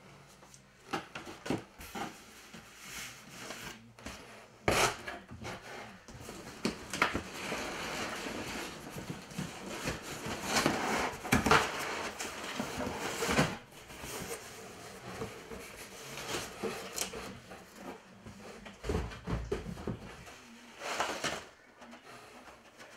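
Brown packing paper rustling and crinkling, with irregular knocks and scrapes of cardboard and stiff kit parts being handled and lifted out of a cardboard box.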